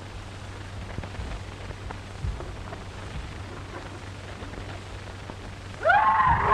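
Steady hiss and low hum of an old optical film soundtrack, with a few faint thuds of a scuffle. Near the end a person's loud scream breaks in suddenly, its pitch wavering.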